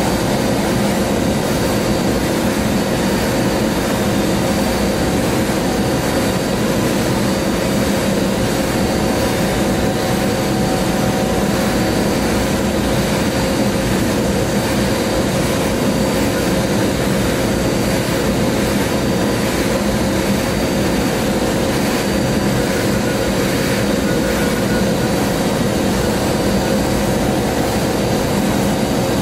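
Sandblast cabinet running: a steady, unbroken hiss of air and abrasive from the blast nozzle as it carves a masked ceramic mug, over a steady machine hum.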